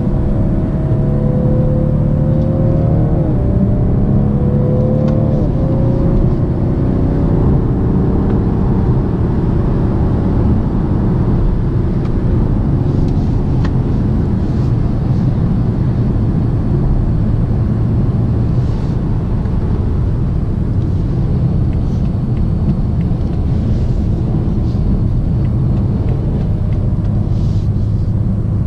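Cabin sound of a BMW 750d xDrive with its 3.0-litre quad-turbo straight-six diesel. It accelerates, the engine note rising and dropping back at two upshifts in the first few seconds, then settles into steady cruising where tyre and wind rumble take over.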